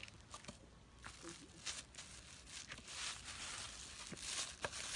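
Faint scraping and crinkling: wooden sticks digging and levering in dry sandy soil while a buried plastic bag crinkles as it is pried out, with scattered small clicks and a busier run of scraping in the second half.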